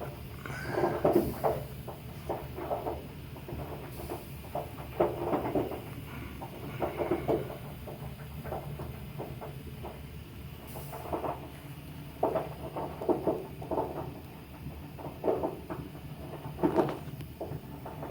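Hot water heater tank popping and crackling in irregular clusters of short pops over a steady low hum. The popping is the sign of sediment built up on the bottom of the tank, with water under it boiling as the tank heats.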